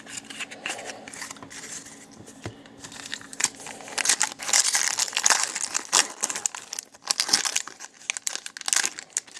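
A 2016-17 Upper Deck Trilogy hockey card pack is torn open by hand, its wrapper crackling densely from about three and a half seconds in until near the end. Before that there is a quieter stretch of cards being handled.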